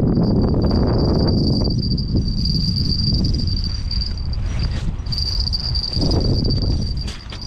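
A steady high-pitched whine over a low rumbling noise. The whine breaks off briefly about five seconds in and again near the end.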